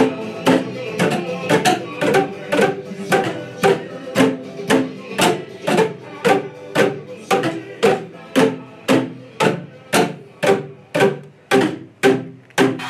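A group playing Boomwhackers, tuned plastic tubes struck to sound pitched hollow notes, in time with a play-along backing track with a steady beat of about two strikes a second.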